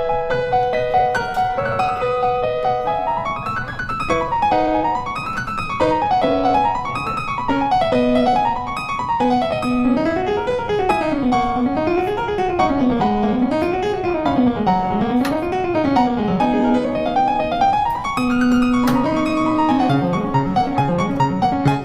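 Background piano music: quick runs of notes rising and falling over a lower line that moves in the same zigzag pattern.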